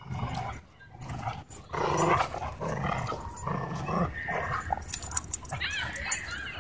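Dogs growling while they tussle in play over a ball toy, with a short high whine near the end.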